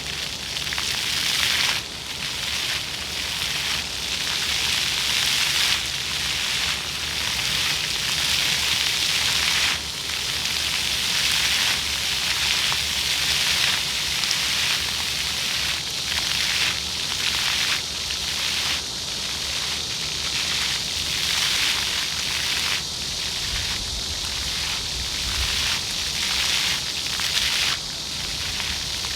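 Floor fountain jets spraying water that splashes down onto the paving, a continuous hiss whose strength rises and falls every few seconds as the jets surge and ease.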